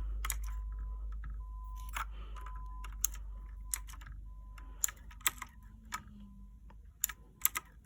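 Mechanical keyboard keys clicking: single, unevenly spaced presses about once a second, a few in quick succession near the end, over a steady low hum.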